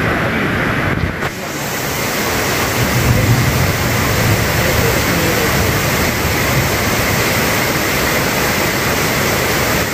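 Heavy rain, a loud steady rushing hiss that dips briefly about a second in.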